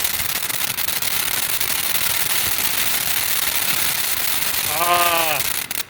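A 500-gram firework cake firing dense, continuous crackle effects: a rapid hail of small pops and crackles. A person exclaims about five seconds in, and the sound cuts off abruptly near the end.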